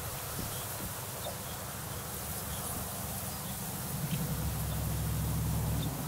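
Outdoor background noise with faint scattered high ticks, and a low rumble that builds about four seconds in.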